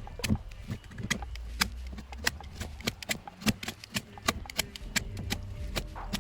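Irregular light clicks and taps, several a second and uneven in strength, over a low steady hum.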